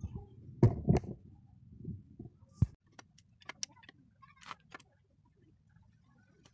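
Metal clinks and knocks from a long socket wrench being fitted to the bolts of a scooter's CVT cover and turned, with a few heavy knocks about a second in and then scattered sharp ticks. The engine is not running.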